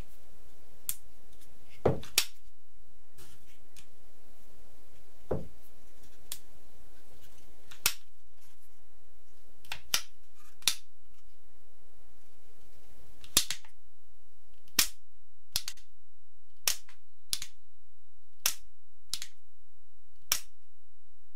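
Homemade rubber-band revolver's mechanism clicking. Single sharp clicks come a few seconds apart at first, then about one a second in the second half.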